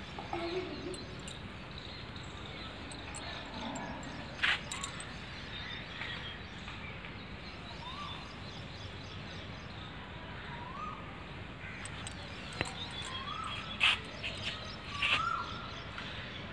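A bird calling with short rising whistled notes, repeated every couple of seconds in the second half, over steady background noise. A few brief sharp sounds stand out louder than the rest.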